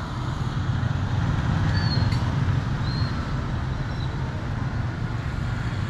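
Town street traffic: a steady low rumble of passing vehicle engines and road noise, with a couple of faint short high-pitched tones about two and three seconds in.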